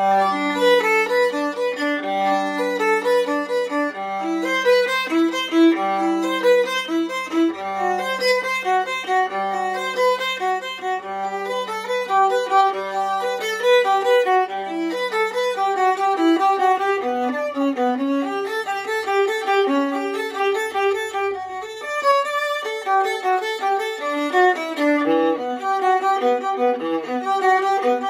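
Antique German viola labelled Christian Hoffmann, 15.5-inch body, bowed in a slow melody. For roughly the first half a low note sounds again and again beneath the moving tune in double stops; after that the melody moves lower on its own.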